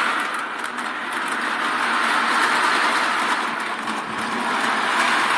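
Battery-powered Lionel toy train running on its track, a steady whirring motor and rattling wheels that swell and ease slightly in level. The owner calls it pretty loud and puts its rough running down to a table that isn't flat.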